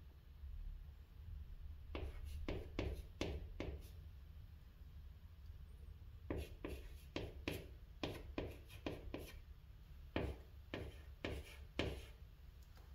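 White chalk writing on a green chalkboard: short strokes of the chalk against the board in three groups of quick strokes, with pauses between them as characters are formed.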